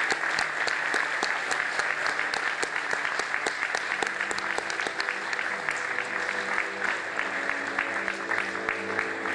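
Audience applauding, a dense run of hand claps, with music fading in about halfway through and growing louder toward the end.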